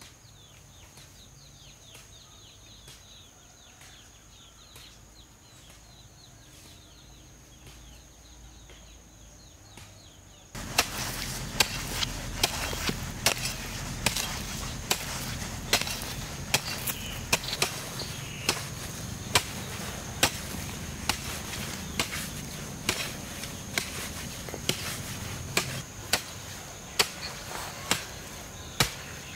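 A steady high insect trill with faint chirps; about a third of the way in, a sudden louder stretch of repeated chopping strikes begins, a little more than one a second, over the continuing trill.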